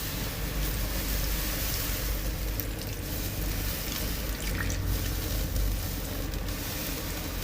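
Water running steadily, with a few faint clicks.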